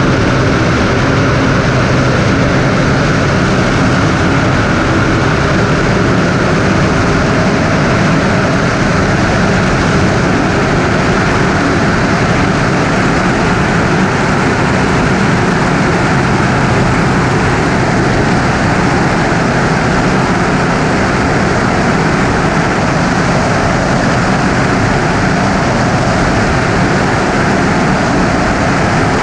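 Single-engine Cessna's piston engine and propeller running steadily, a loud even drone with no change in pitch.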